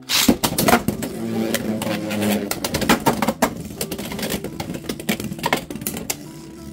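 Dran Buster and Rhino Horn Beyblade X tops launched into a clear plastic stadium with a loud rip, then spinning and clashing: repeated sharp clacks and clicks as the tops hit each other and the stadium wall.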